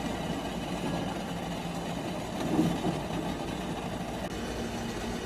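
A small motor running steadily with a low hum, a little louder for a moment about two and a half seconds in.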